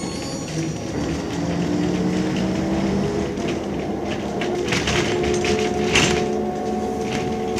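Ikarus 260 city bus's diesel engine pulling, heard from inside the passenger cabin: its pitch rises over the first few seconds, then holds steady. Short knocks and rattles from the bus body come in near the end.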